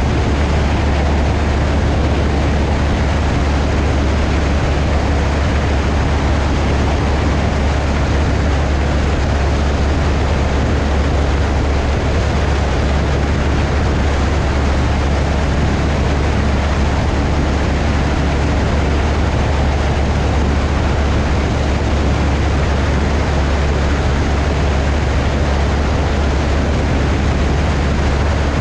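Single-engine Cessna 172's 180 hp four-cylinder engine and propeller droning steadily in flight, heard through heavy wind noise on an outside wing-strut microphone.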